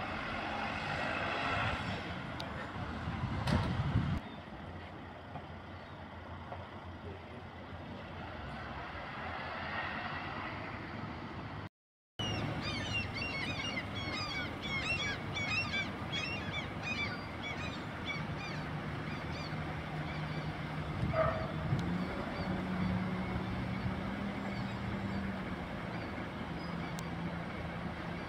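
Road traffic passing and idling, louder in the first few seconds, with a quick run of many high bird chirps in the middle and a low steady engine drone later on.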